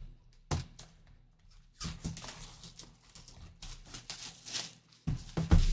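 Cellophane shrink-wrap being torn and peeled off a cardboard trading-card box, crinkling in several bursts, with a louder thump from the box being handled near the end.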